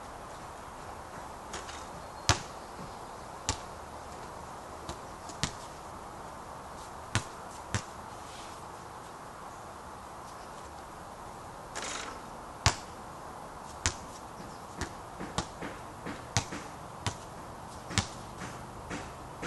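Basketball bouncing on a backyard court: sharp single thuds at irregular intervals, sparse at first and coming closer together in the second half, over a steady background hiss. There is a short rushing noise just before the twelfth second.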